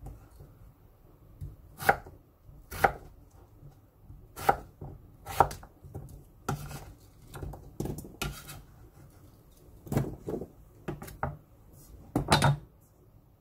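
Chef's knife dicing raw potato on a wooden cutting board: separate, unhurried knife strikes against the board at roughly one a second, with a louder double knock near the end.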